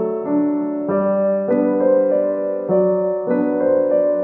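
Background piano music: a gentle melody with new notes and chords arriving at an even pace, about every half second.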